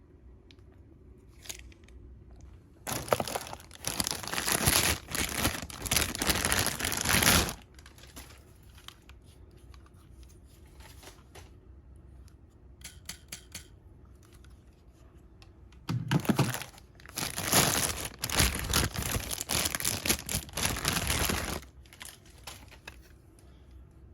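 Toy packaging being handled and pulled open: crinkling and tearing in two spells of a few seconds each, with quiet handling between them.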